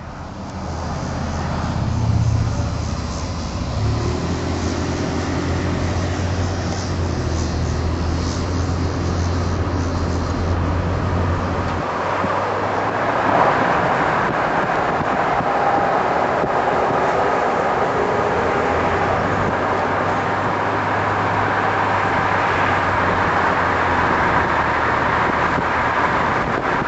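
Diesel locomotive engine running with a low drone as a train passes, giving way about twelve seconds in to the steady noise of train cars rolling on the rails. The engine drone comes back near the end.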